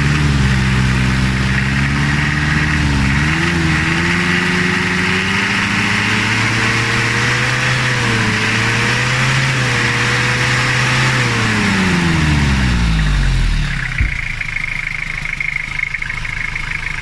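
Nissan TD27 diesel engine, its injection pump timing just advanced, revved up gradually, held at higher speed, then let fall back to idle about thirteen seconds in.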